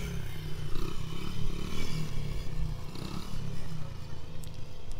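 A child's small dirt bike engine running at low throttle, heard faintly under a choppy low rumble on the microphone.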